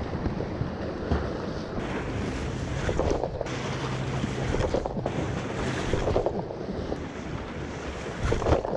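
Wind buffeting the microphone over the sea, with waves washing against the breakwater's rocks and concrete tetrapods.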